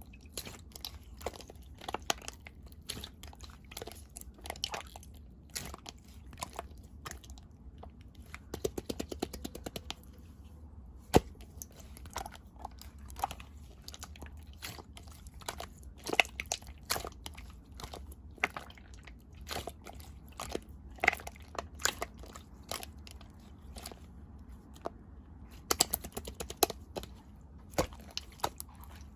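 Clear slime being squeezed and poked by hand, giving many irregular sticky clicks and pops, with a quick run of clicks about nine seconds in and one sharp loud pop about eleven seconds in.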